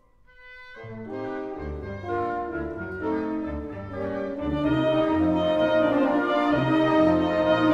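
Symphonic wind band playing: a soft held note, then brass and low winds come in about a second in and the music swells steadily louder.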